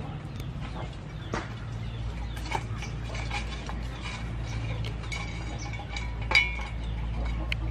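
Outdoor yard ambience: a steady low hum with scattered sharp clicks and a few short high animal calls, the loudest a single sharp call about six seconds in.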